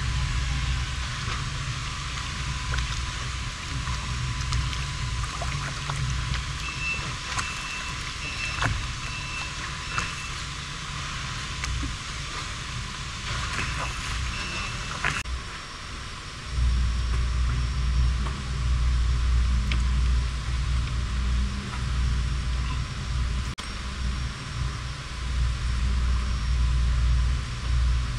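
Wind buffeting the microphone as a low rumble that grows stronger a little past halfway through, over a steady hiss of wind and choppy water around a small boat.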